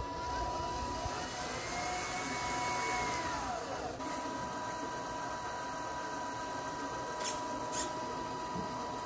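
Small electric motor of a homemade RC truck whining: the pitch climbs about a second in, holds, then winds down before the middle. Two short ticks come near the end.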